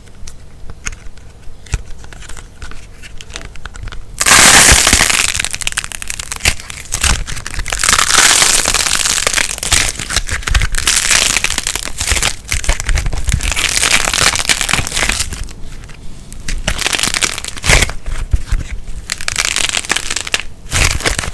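Slime mixed with crackling light plasticine being squeezed and kneaded by hand: a dense run of small crackles and pops, loudest about four seconds in and again around eight seconds.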